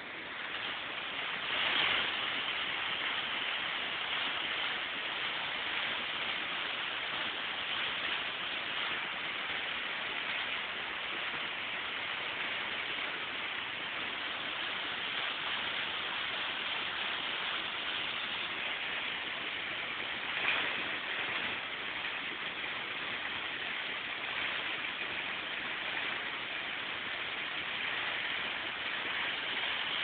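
Waterfall rushing steadily, an even hiss of falling water, briefly louder twice.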